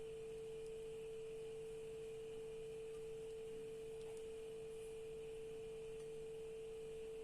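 A faint, steady pure tone a little under 500 Hz, held without change.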